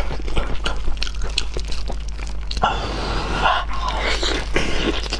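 Close-up eating sounds of braised pork trotter being bitten and chewed: wet smacking and sharp lip and tongue clicks, with a denser, wetter stretch about halfway through. A steady low hum sits underneath.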